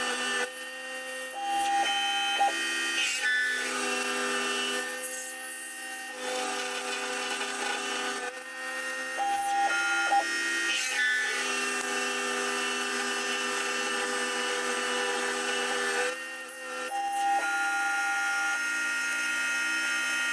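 Sieg X2 mini mill converted to CNC, running a drilling program with an 8 mm drill: the spindle and stepper motors whine in steady tones that shift in pitch every few seconds as the axes move. A higher tone sounds briefly three times, each lasting about a second.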